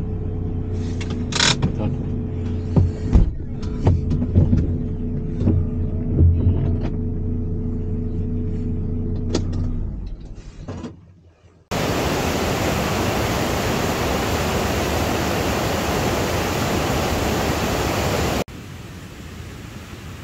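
Campervan engine idling, with scattered clicks and knocks, then cutting out about ten seconds in. After a brief lull, a loud steady rushing noise starts suddenly and runs for about seven seconds, then drops to a quieter steady hiss near the end.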